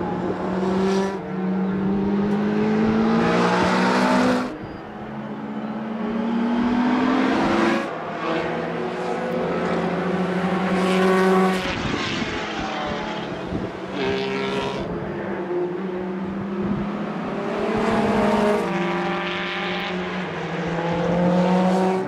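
Historic formula racing cars accelerating out of a corner and passing one after another, their engines climbing in pitch and dropping back at each upshift, several times over.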